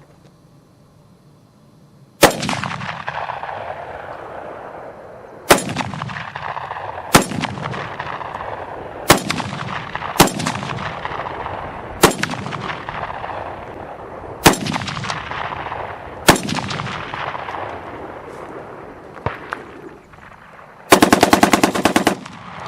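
Ruger Mini 14 rifle firing .223 Remington steel-case rounds: eight single shots spaced one to two seconds apart, each with a long echo rolling away. Near the end comes a fast, loud rattle of many strokes lasting about a second.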